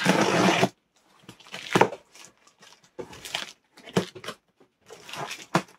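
A cardboard box being torn open, with a loud rip in the first moment, then scattered rustling, crinkling and knocks as packing material is pulled out of it.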